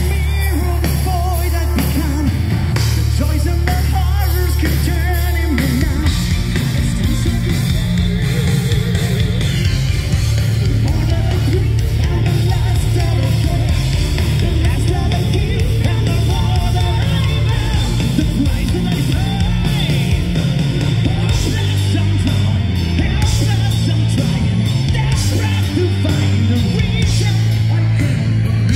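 Symphonic metal band playing live and loud: distorted electric guitars, bass and drums under a male lead singer, with a female singer joining. The low end changes pattern about six seconds in.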